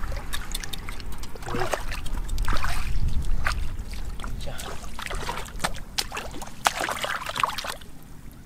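Shallow muddy water splashing and sloshing as hands and bare feet churn through it, with many irregular short splashes.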